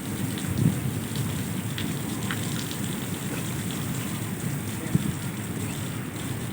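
Heavy rain falling steadily, with a few sharper drop hits standing out now and then.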